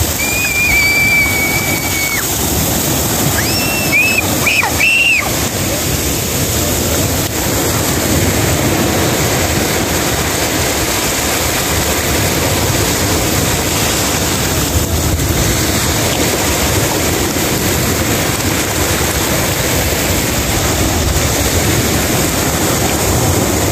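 Small waves of surf washing in and out over shallow sand, a steady rush of water. Early on there are a few high-pitched squeals: one held for about two seconds, then several short ones.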